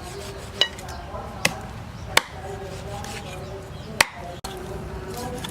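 Four separate chops of a knife on a cutting board, unevenly spaced, the last one the loudest.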